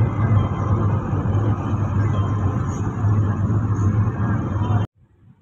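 Steady engine and road rumble heard from inside a moving car, stopping abruptly near the end.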